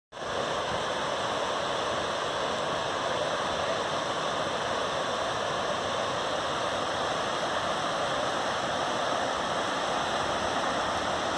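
Whitewater rapids of a creek running high after days of rain: a steady, even rush of water.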